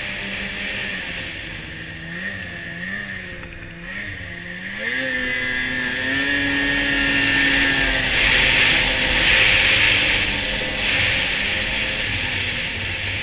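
2006 Polaris RMK 600 HO snowmobile's two-stroke twin engine running under throttle: its pitch wavers up and down for the first few seconds, then climbs about five seconds in and holds higher. A loud rushing noise swells about eight to eleven seconds in.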